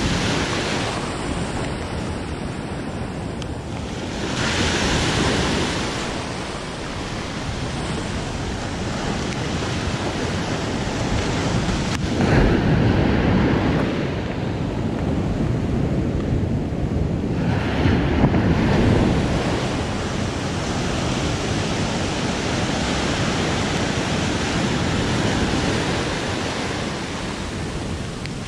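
Ocean surf breaking and washing up a sandy beach, rising and falling in several louder surges, with wind buffeting the microphone.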